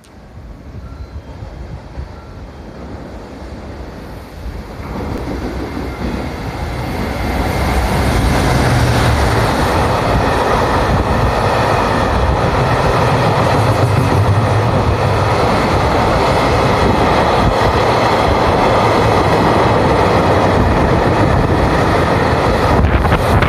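Container freight train passing close alongside the platform: the wheel-on-rail noise builds over the first several seconds as it draws near, then holds steady and loud as the container wagons run by.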